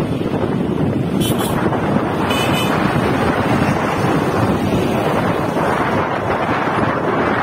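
Wind buffeting the microphone while riding along on a motor scooter, a steady loud rush mixed with road noise. Two brief high chirps about one and two and a half seconds in.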